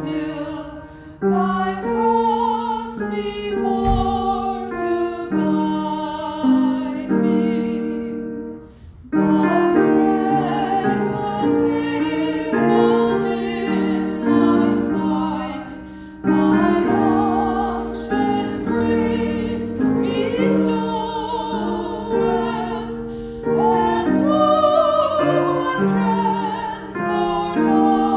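Church music: piano accompanying a sustained melody sung with vibrato, in phrases with short breaks about every seven or eight seconds.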